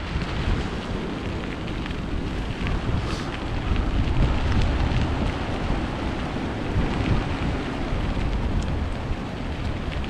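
Wind buffeting the microphone, a steady rumbling noise without let-up.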